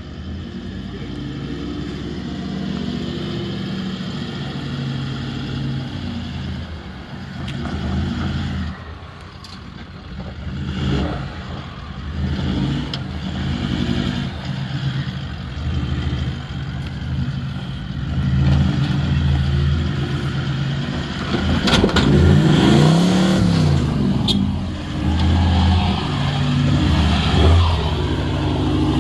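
Toyota 76 Series LandCruiser engine labouring as it crawls through deep ruts off-road, revs rising and falling with the throttle. About two-thirds of the way through it revs up sharply and falls back, with a few knocks from the vehicle and tyres working in loose dirt.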